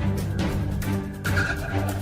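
Background music with a steady low bass line and a regular beat of drum hits.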